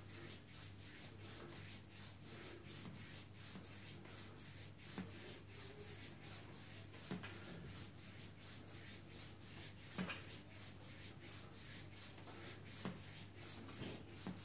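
Hands rubbing skin in quick back-and-forth massage strokes on the back of a man's lower leg near the ankle: an even swishing about three times a second.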